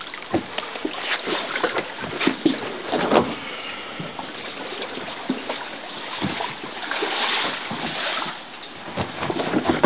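Water sloshing and splashing around a small boat being moved by hand, with irregular knocks, crackles and rustles of mangrove branches and the hull; no motor is running.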